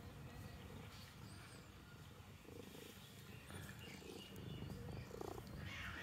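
Ginger-and-white cat purring faintly, a low steady rumble.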